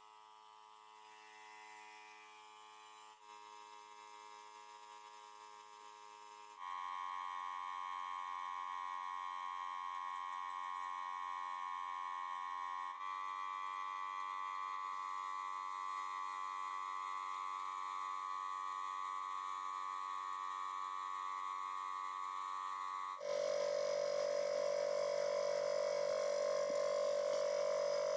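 Soft background music of sustained synth chords that change every few seconds and get louder about a quarter of the way in.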